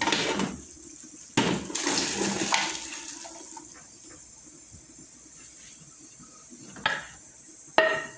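Cooked red beans and their cooking liquid poured from a pressure cooker into a large aluminium pot, splashing, loudest in the first three seconds and then dying down. Two sharp metal knocks near the end.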